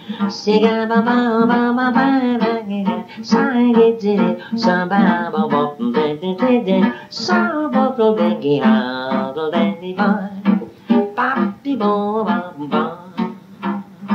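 Acoustic guitar strummed in a steady rhythm under a man's wordless, scat-style vocal melody, heard through an old home tape recording.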